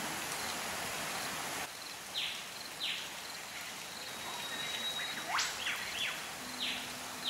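Waterfall pouring into a rock pool, a steady rush that stops about a second and a half in. After it, a quieter forest background carries birds calling: several quick falling whistles and one fast rising whistle.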